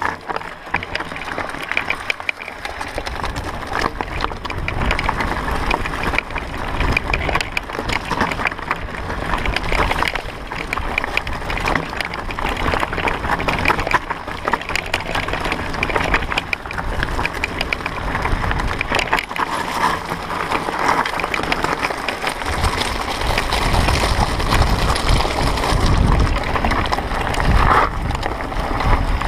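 Mountain bike ridden fast down a dirt singletrack: tyres on dirt and a constant rattle and clatter of the bike over bumps, with a low rumble of wind on the microphone.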